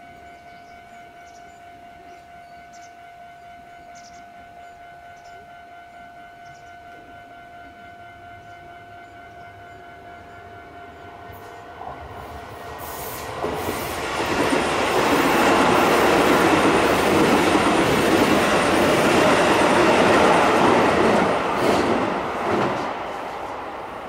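Keisei level-crossing alarm ringing on and on, its warning tone steady, then about halfway through a Keisei train passes close by, its wheels clattering over the rails, loudest for several seconds and fading near the end and drowning out the bell.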